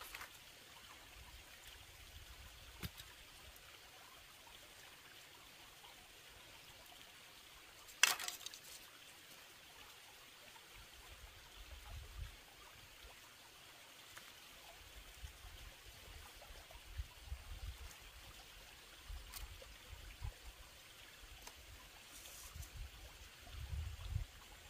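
Faint, steady trickling water, with one sharp click about eight seconds in and a few soft low rumbles later on.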